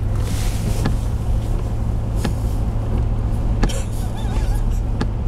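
Steady low engine and tyre noise inside a moving car's cabin, with a short click about every second and a half.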